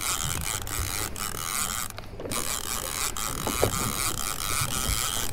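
Conventional saltwater fishing reel being cranked hard against a hooked fish, its gears giving a steady whir with a ratcheting click. The cranking breaks off briefly about two seconds in, then picks up again.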